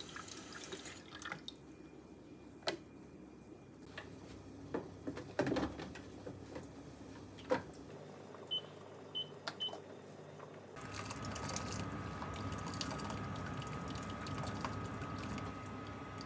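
Clicks and knocks of a plastic water tank and appliance parts being handled, then three short, evenly spaced beeps from the Panasonic Bistro steam oven's control panel as it is set. About two-thirds of the way through, a louder steady hum with a thin whine sets in.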